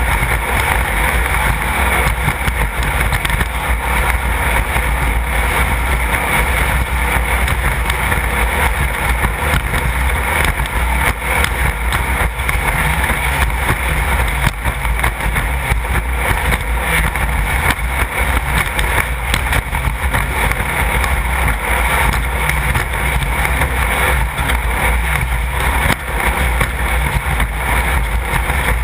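Class 1/2-1600 off-road race car with its air-cooled 1600 cc Volkswagen flat-four running steadily at speed, a loud, even engine-and-wind noise with low rumble and constant small rattles.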